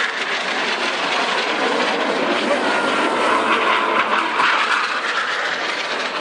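Northrop F-5E Tiger II jets flying past, their twin General Electric J85 turbojets making a steady rushing jet noise, with a faint falling whine near the middle.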